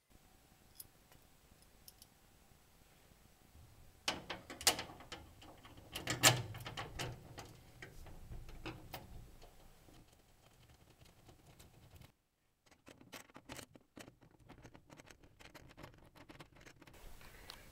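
Small metal clicks, rattles and knocks as a steel angle bracket, machine screw and washer are handled and fitted by hand into a metal cabinet frame. The loudest knocks come about four and six seconds in, followed by lighter scattered clicks.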